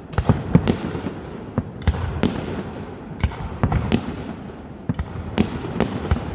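Fireworks going off: about a dozen sharp bangs in quick, irregular succession, with a continuous low rumble between them.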